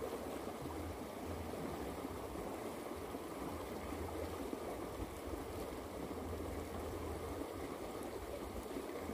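River water rushing steadily through a shallow rapid.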